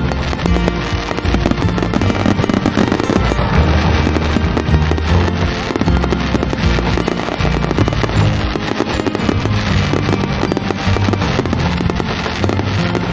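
Fireworks display at close range: shells bursting and crackling continuously while ground fountains spray, over music with held bass notes.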